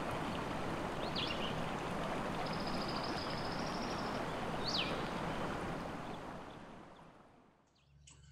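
Rushing river rapids, a steady noise of churning water, with songbirds chirping over it: a few quick sweeping chirps and a short high trill. The water sound fades out over the last two seconds.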